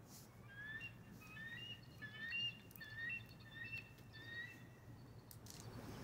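Faint bird calls: a run of short, rising whistled chirps, several at a time at different pitches, lasting about four seconds, with a few light clicks near the end.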